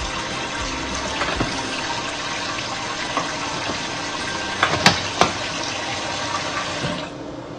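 Water running from a kitchen tap into a container, with a couple of sharp clinks about five seconds in; the water is shut off near the end.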